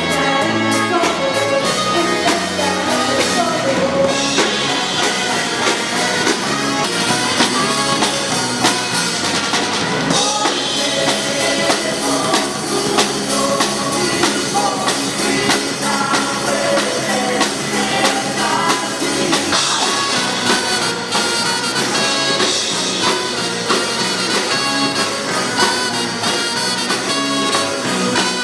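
Funk band playing with brass, trumpet among them, over a drum kit, without a break.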